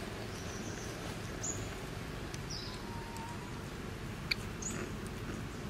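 Outdoor ambience: a steady low rumble with a few brief, high-pitched chirps and one sharp click about four seconds in.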